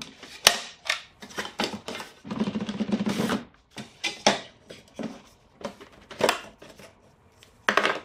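Hard plastic clicks, knocks and a scrape as 40-volt lithium-ion battery packs are pulled out of a Greenworks 25302 cordless mower and the hinged plastic battery-compartment lids are flipped and snapped shut. A sharp click comes about half a second in, a rustling slide about two to three seconds in, and further clicks and knocks follow, one near the end.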